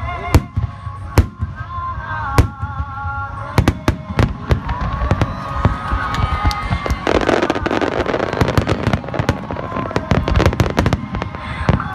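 Fireworks display: aerial shells going off in many sharp bangs, with a dense run of rapid crackling from about seven seconds in to about eleven. Music plays underneath.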